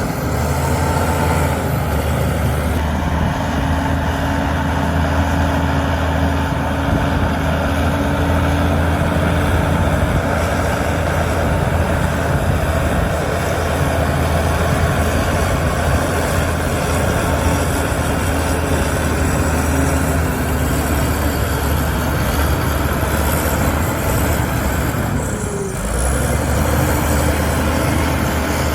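Engine of heavy earthmoving machinery running steadily with a deep drone, dipping briefly near the end.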